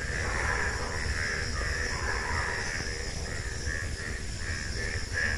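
Crows cawing repeatedly, in a quick run of short calls near the end, over a steady high hiss and a low rumble.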